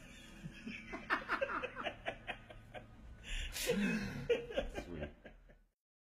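A few people laughing together in short, rapid chuckles, with a breathy burst of laughter about halfway through. The sound cuts off suddenly near the end.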